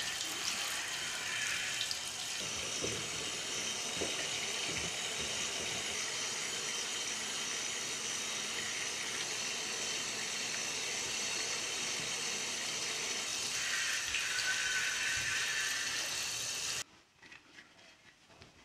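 Water running from a hand-held shower head onto a clear plastic helmet visor as it is rinsed, a steady hiss that cuts off abruptly near the end. After that, only faint rustling of a towel as the visor is dried.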